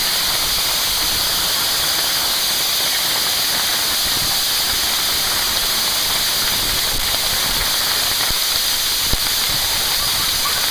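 Heavy hail pelting down: a dense, steady rush of hailstones striking the ground and nearby surfaces, with one sharper knock near the end.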